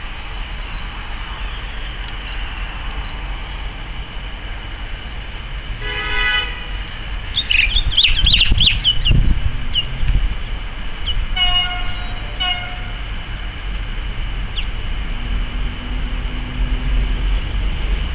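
A train horn sounds one short blast about a third of the way in, then two short blasts a little past the middle, over a steady low rumble. Birds chirp briefly between the blasts.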